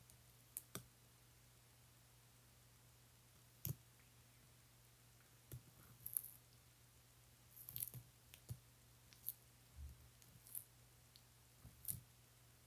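Baby sulcata tortoises biting and tearing leafy greens: faint, scattered crisp clicks and crunches, about a dozen at irregular intervals, over a faint steady low hum.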